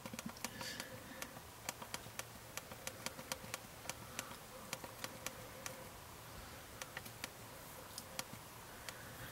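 Faint irregular clicks, about two or three a second, of a BlackBerry Storm's SurePress touchscreen clicking down under the thumbs as a text is typed letter by letter, over a faint steady hum.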